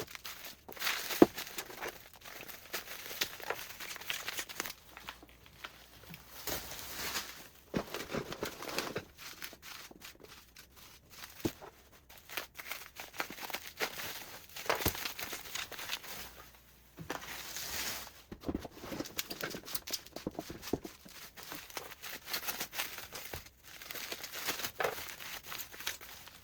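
Packaging being unpacked by hand: irregular tearing, crinkling and rustling of cardboard and wrapping, with scattered knocks.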